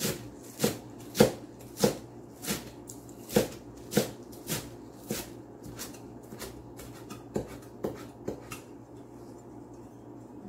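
Chinese cleaver chopping green onions on a cutting board, in single knocks about every half second. The knocks grow softer and sparser after about five seconds and stop near the end.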